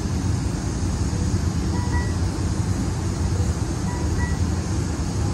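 Amtrak San Joaquin passenger train standing at the platform with its equipment running: a steady low rumble and hum. Faint short beeps repeat every second or two.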